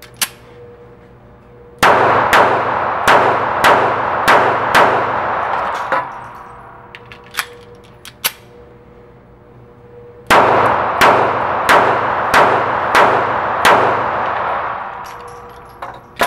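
Taurus PT738 TCP .380 ACP compact pistol firing two strings of about six shots each, roughly eight seconds apart, at about one and a half shots a second. Each shot echoes off the walls of an indoor range, and a few faint metallic clicks fall between the strings.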